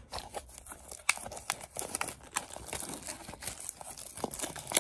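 Foil wrapper of a Pokémon TCG booster pack crinkling and tearing as it is handled and opened, a run of irregular crackles.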